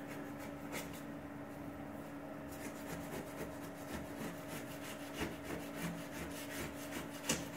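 Razor blade scraping dried paint off ceramic floor tiles in quick, repeated strokes.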